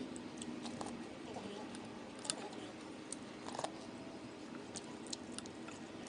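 Eating sounds: scattered light clicks and ticks from someone eating a bowl of instant noodles, with a sharper click about two seconds in and another about three and a half seconds in.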